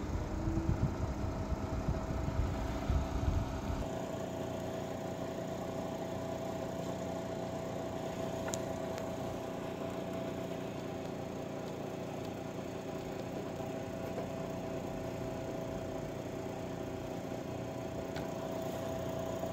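Electro-Arges RT1 2000 W electric fan heater running: a steady hum from its fan motor with a constant whine over it. A louder low rumble sits under it for the first four seconds, then drops away.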